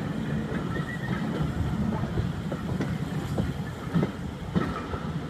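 Railway carriage wheels rumbling along the track, with irregular clicks and knocks as they cross rail joints and pointwork, heard from the carriage window. The knocks come thickest about four seconds in.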